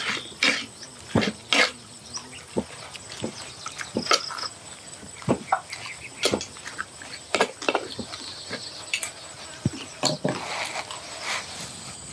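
A person eating: irregular crunches, chewing and mouth clicks, close to the microphone. A faint steady insect drone runs underneath.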